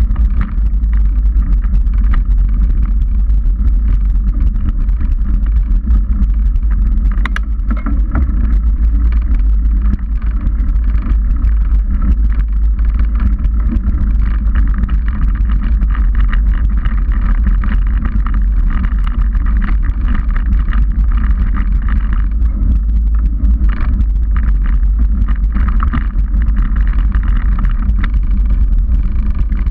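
29er mountain bike rolling along a rocky dirt trail: a steady low rumble of tyres on dirt and wind on the microphone, with frequent small clicks and rattles over stones and roots and a sharper knock about seven seconds in.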